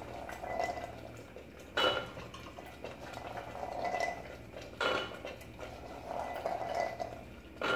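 Soaked white chickpeas being tipped into a pressure cooker of thick masala, with soft sliding sounds and three sharp metallic clinks of a utensil against the cooker, about two seconds in, at five seconds and near the end.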